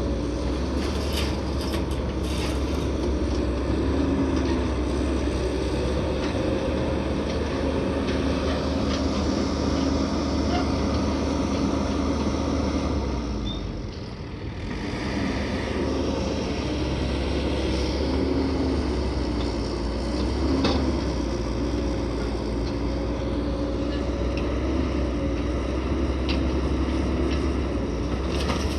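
Heavy truck engine running steadily, with a low hum and scattered rattles and knocks. The level dips briefly about halfway through, then the engine sound resumes.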